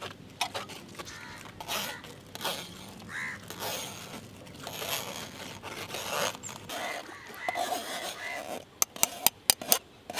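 Metal spoon scraping and pressing dragon fruit pulp through a stainless steel mesh strainer, in uneven wet strokes, with a quick run of sharp metallic clicks near the end.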